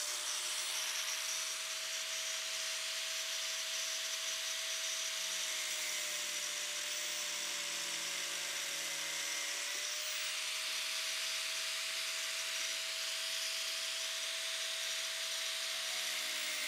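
Electric angle grinder with a metal cutoff wheel cutting through 1/4-inch steel all thread rod: a steady high whine over a harsh grinding hiss, the pitch sagging a little in the middle as the wheel bites into the rod.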